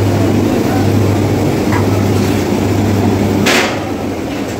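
Steady low drone of commercial kitchen equipment, with a constant hum running under it. A single sharp metallic clatter comes about three and a half seconds in.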